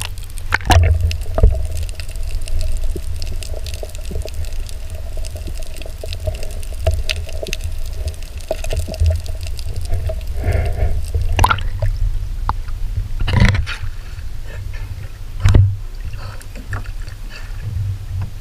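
Muffled water noise from a camera held under the sea: a low rumble with scattered knocks and clicks. A faint steady tone runs through the first half and stops about ten seconds in.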